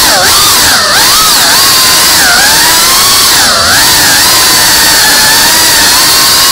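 FPV quadcopter's brushless motors and propellers whining loudly, recorded on the drone's own camera. The pitch dips and rises sharply several times in the first four seconds as the throttle changes, then holds steadier.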